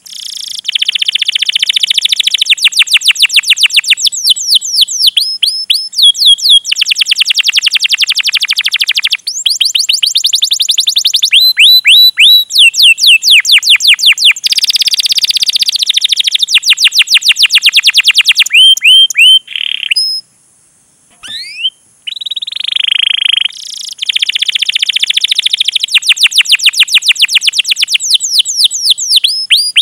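Domestic canary singing: long rolls of rapid, high repeated chirps in phrase after phrase, with sharp 'cuit cuit' notes and a short pause about two-thirds of the way in.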